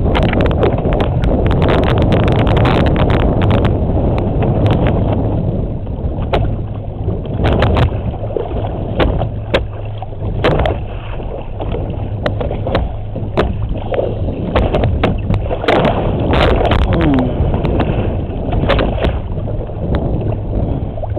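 A boat's engine running with a steady low hum, under irregular splashing and sloshing of water at the hull as a sailfish is held alongside by its bill for release.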